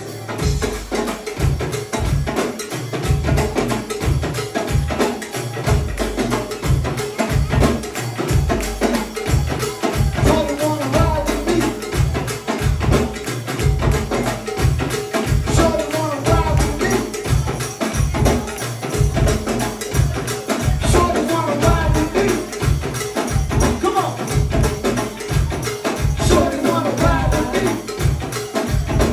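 Live go-go band playing an instrumental groove: a steady, heavy drum-and-bass beat with tambourine and hand percussion.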